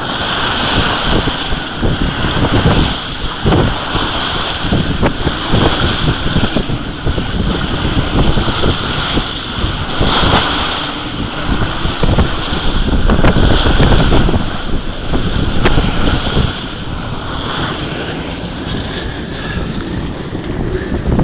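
Strong wind buffeting the microphone over water rushing and splashing along the hull of a sailboat driving through choppy water, the noise swelling and easing with the gusts.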